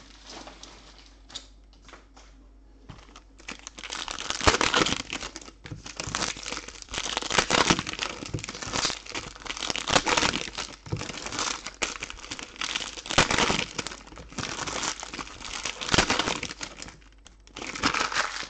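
Wrappers of 2020 Select Euro soccer trading-card packs being crinkled and torn open by hand. After a quiet first few seconds it comes in repeated crackling bursts, each rising and falling.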